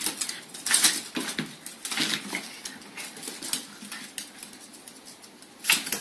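Claws clicking and tapping on a hardwood floor as a small parrot and a dog scamper around: a quick, irregular clatter, busiest in the first couple of seconds, with a sharp burst near the end.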